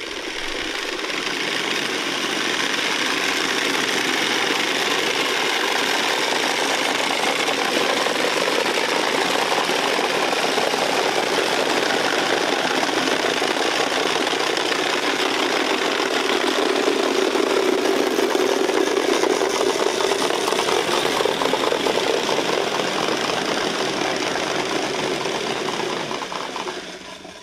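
Many wooden Easter rattles (Klappern) turned together: a dense, continuous wooden clatter. It fades in at the start and fades out near the end.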